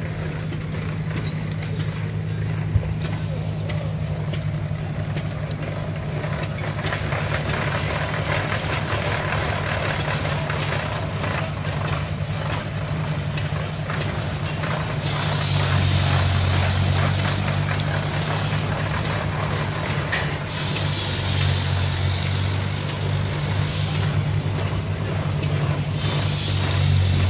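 Steady low drone of engines running at an antique tractor and steam engine show, growing louder about halfway through, with a hiss rising over it at times.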